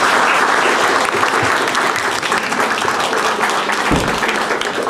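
Audience applauding: dense clapping from a roomful of people that slowly thins out.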